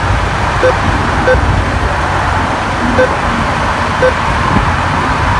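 Drive-through ATM keypad beeping as a cash amount is keyed in: four short beeps, spaced unevenly. Under them runs the steady low rumble of an idling car.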